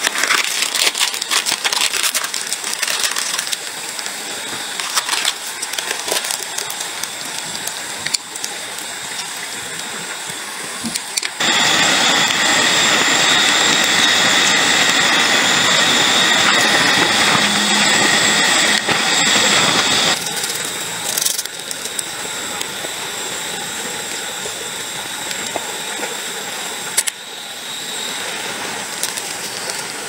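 Forest ambience with a steady insect drone, with light rustling and clicks as a nylon backpack is handled. From about eleven to twenty seconds in comes a louder steady hiss over a shrill whine, from a pot of instant noodles boiling on a gas camp stove. It starts and stops abruptly.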